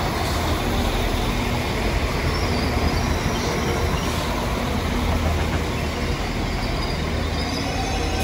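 West Midlands Railway Class 196 diesel multiple unit moving slowly along a station platform: a steady low underfloor engine drone with wheel and running noise and faint steady whines over it.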